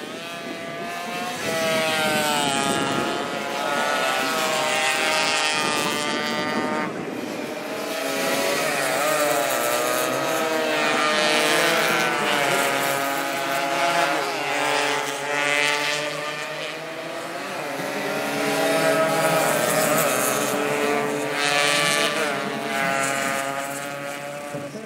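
Several Suzuki AX100 two-stroke single-cylinder race motorcycles revving as they pass. The engine pitch rises and falls repeatedly with throttle and gear changes.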